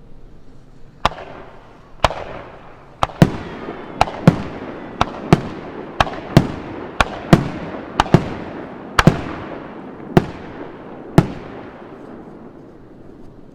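Aerial fireworks going off in a rapid series of sharp bangs, often in close pairs, each trailing off in a rolling echo; the bangs stop about eleven seconds in.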